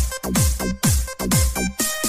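Electronic dance music with a steady kick-drum beat, about two beats a second, over sustained synth tones, with a burst of hiss near the end.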